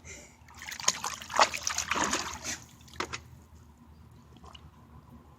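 Water splashing and sloshing in a small wading pool as a dog noses and paws after a ball, a run of splashes over the first three seconds or so, then only faint trickling.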